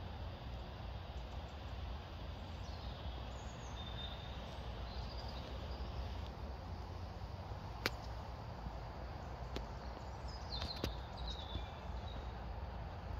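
Outdoor ambience: a steady low rumble with faint bird chirps in two short spells, and a few sharp clicks in the second half.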